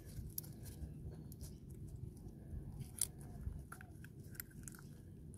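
Faint handling sounds as a rubber dust boot is worked onto a greased clutch slave cylinder pushrod with gloved hands: soft squishing and a few small clicks, the sharpest about three seconds in, over a low background hum.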